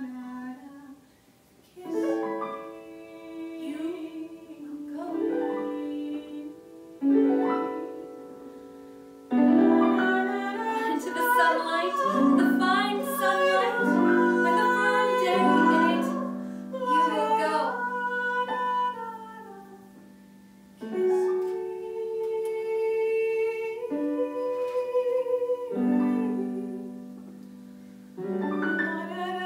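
Live music: slow piano chords struck every few seconds, with a woman singing long held notes with vibrato over them.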